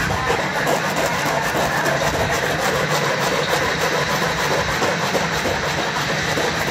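Steady machinery running in a noisy workshop, an even mechanical noise with a fast, fine rattle that does not let up.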